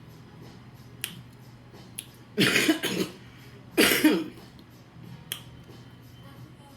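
Two loud burps about a second and a half apart, each a short, rough blast that falls in pitch, with a few faint clicks before and after.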